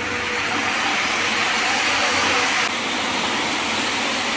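Steady loud hiss of stage spark fountains firing around the stage. The hiss drops abruptly about two and a half seconds in and carries on more quietly.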